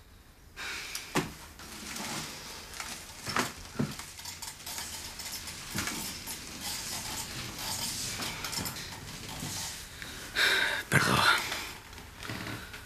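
Light clinks, knocks and rustles of small objects being handled, with a louder cluster of them about ten seconds in.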